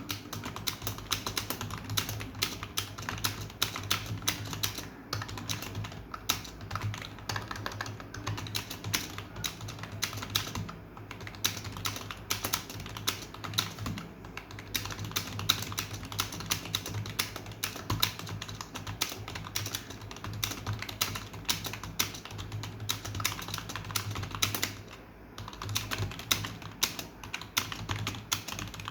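Fast typing on a computer keyboard: a rapid, continuous stream of keystrokes with a few brief pauses.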